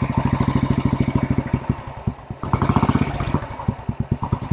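1964 Velocette Venom Clubman's 500cc air-cooled overhead-valve single-cylinder engine idling with an even beat of separate firing pulses. About two and a half seconds in, the throttle is blipped: the beat quickens and grows louder for about a second, then settles back to idle.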